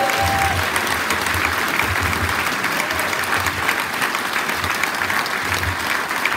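Large audience applauding, many people clapping steadily.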